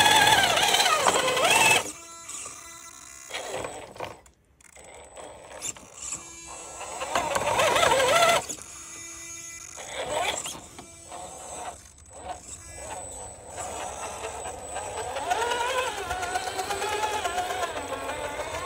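Electric motor and gear drive of a Redcat RC rock crawler whining in bursts, the pitch rising and falling with the throttle, with short quieter pauses between runs.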